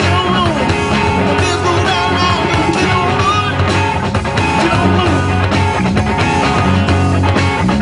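Live rock band of electric guitar, bass guitar and drums playing an instrumental stretch, with notes bending up and down over a steady groove.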